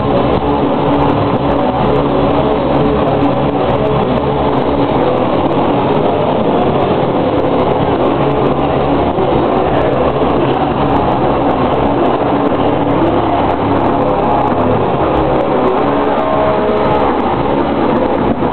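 Live heavy band playing loud on distorted electric guitars and drums, recorded on a camcorder in the crowd, heard as a loud, dense, unbroken wall of sound.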